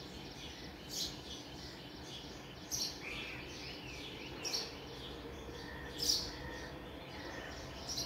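Birds chirping, with a few short sharp calls every second and a half or so, over a steady background hiss.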